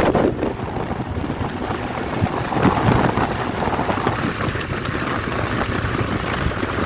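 Wind buffeting the microphone over the steady rumble of a moving vehicle on the road.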